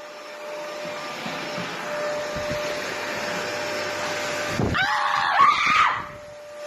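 Steady whir of a small electric appliance motor with a faint hum, then about five seconds in a loud, high scream lasting about a second, a startled reaction to a scare.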